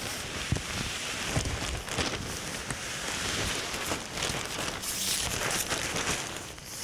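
Nylon tent flysheet rustling and crinkling as it is pulled and smoothed over a dome tent, with scattered small clicks.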